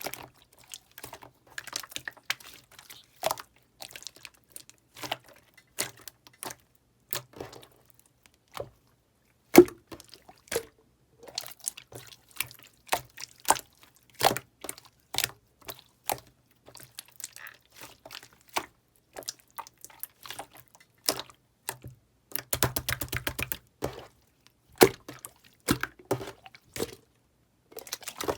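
Pink slime being squished and worked by hand, making irregular wet clicks and pops. About three-quarters of the way through comes a rapid run of crackling pops.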